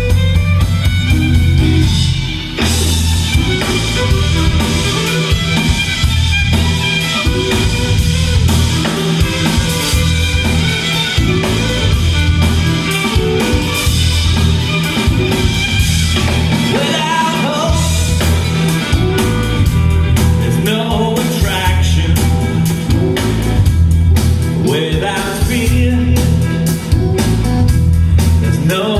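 Rock and roll band playing a passage without transcribed vocals: electric guitar over a pulsing bass line and drum kit.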